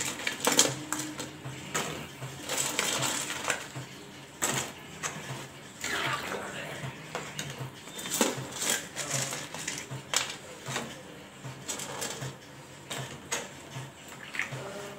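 Fried gram-flour pakoras picked by hand from a steel plate and dropped into simmering kadhi in a steel kadai: irregular soft plops, with light clinks and rattles against the steel plate.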